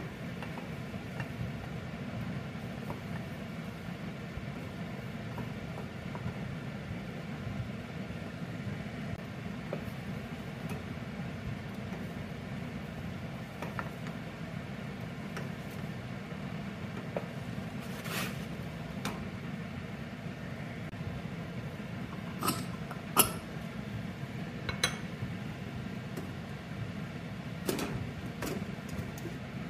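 Steady low hum with a few sharp clinks and knocks of metal cookware on a stainless steel pan, the loudest about two-thirds of the way through, then more clinks near the end as a steel pressure cooker lid is handled.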